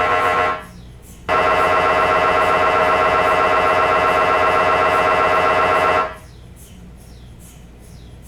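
MRI scanner's gradient coils sounding a loud, steady buzzing tone. It cuts out about half a second in, comes back a moment later for about five seconds, then stops. A low hum with faint ticking is left behind.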